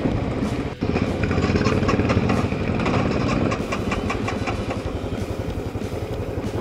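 Royal Enfield Classic 500's single-cylinder engine running at low speed, with a brief dropout about a second in.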